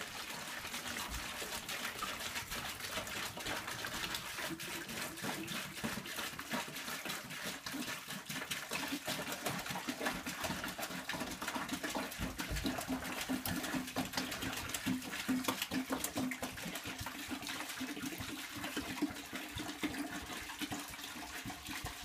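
Distilled white vinegar poured from a gallon jug into a plastic 5-gallon bucket: a steady, continuous splashing pour, filling the bucket for a tankless water heater descaling flush.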